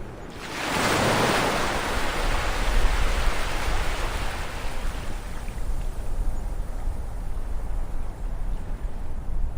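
Ocean wave breaking on the shore: a rush of surf swells up about half a second in and washes away slowly over the following seconds, over a steady low rumble of the sea.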